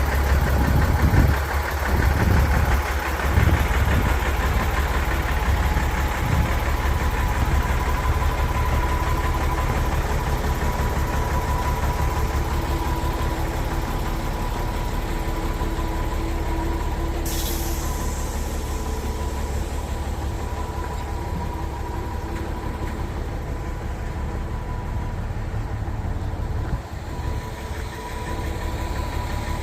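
Diesel engine of a Junjin 45-metre concrete pump truck running steadily, with a faint steady whine on top. A brief hiss about seventeen seconds in.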